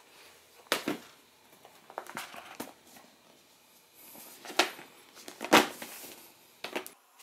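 A cardboard drone retail box being picked up, turned and opened by hand: about six sharp scrapes and taps of cardboard spread over several seconds, with light crinkling in between.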